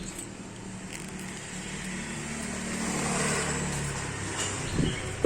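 Suzuki Swift car engine running at a steady idle, just started by the remote-start function, swelling slightly midway. A sharp click comes at the very end.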